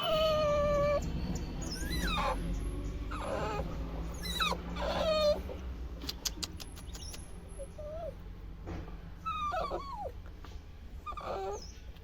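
A small pet animal whining or crying over and over: about seven short, high calls that slide up and down in pitch, with a steady low hum underneath.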